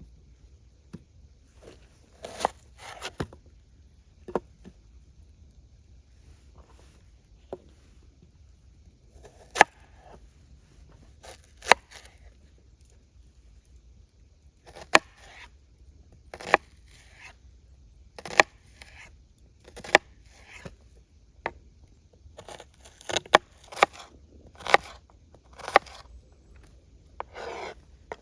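Spruce branches and twigs being snapped and handled: irregular sharp cracks with short rustling scrapes between them, coming more often near the end.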